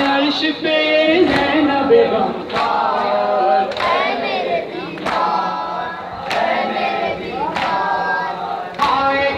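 A group of men chanting an Urdu noha (Shia mourning lament) together, led over a microphone. Under the chant comes a sharp slap about every second and a quarter, from the mourners beating their chests in matam.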